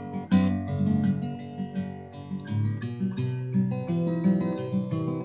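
Acoustic guitar music: an instrumental passage of a song between sung lines, a run of separately sounded notes and chords.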